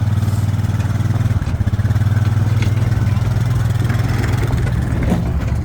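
Small vehicle engine running steadily at a constant speed.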